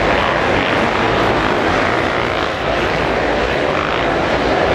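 Many motocross bikes racing together up sand, their engines blending into a loud, steady mass of engine noise.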